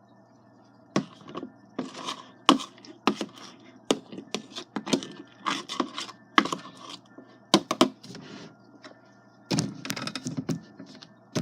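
Irregular knocks and clicks of a utensil against a bowl, with short scraping strokes, as slime is stirred.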